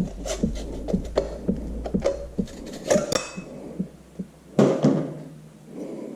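Hand tools and metal parts clinking and scraping, with a ringing metallic knock about three seconds in and a louder clank at about four and a half seconds, from working a tractor front bolster's lower bushing sleeve out.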